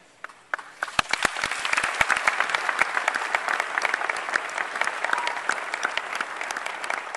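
A large audience applauding. The clapping starts within the first second and quickly swells to dense, steady applause, with a few loud individual claps from close by.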